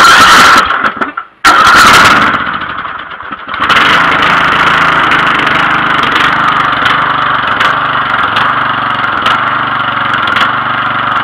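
Bolens lawn tractor's engine cold-started with the key on a low battery: two short bursts of starting, the second one catching, then from about four seconds in the engine runs steadily.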